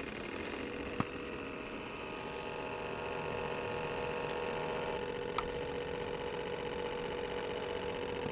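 Steady electric whine and hum of a radio-controlled model tug boat's drive motor as it cruises, with a couple of faint clicks.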